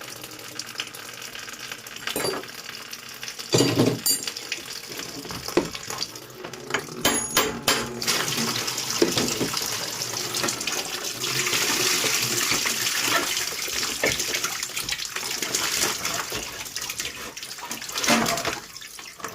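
Water running and splashing in a steady rush through the middle stretch, with scattered metallic knocks and clatters before it and again near the end.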